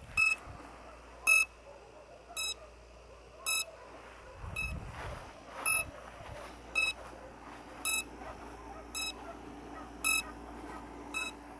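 Short, high electronic beeps repeating evenly about once a second, like the alert beeper on a small RC model's electronics. A brief low rumble comes about halfway through.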